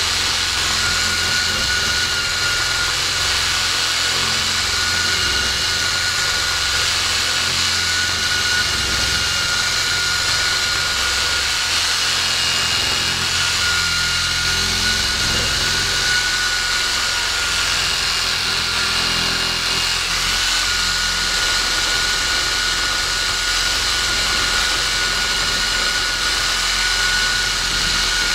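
Ryobi one-handed cordless reciprocating saw with a Diablo carbide-tooth wood blade cutting into the end of a bark-covered log, running steadily with a constant motor whine. The cut is slow going.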